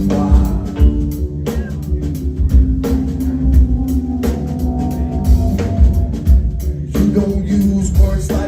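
Live rock band playing an instrumental passage without singing: a steady drum-kit beat under bass and held, sustained low notes.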